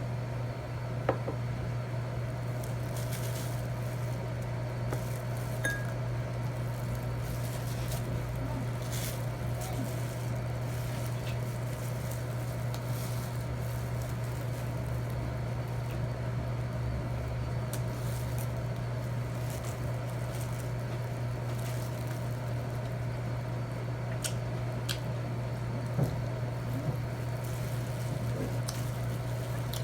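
Scattered clinks of cutlery on a plate and soft wet eating sounds, over a steady low hum.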